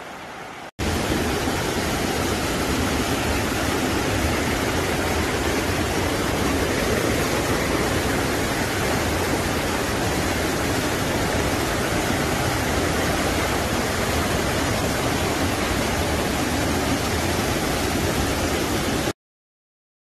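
Waterfall rushing into a rock pool: a steady, loud roar of falling water that starts abruptly about a second in and cuts off suddenly just before the end.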